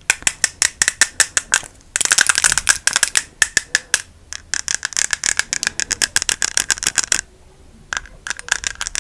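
Rapid close-miked tapping clicks, several a second, in quick runs with short pauses. Each click has a slight ring. The clicks stop for about a second near the end, then start again.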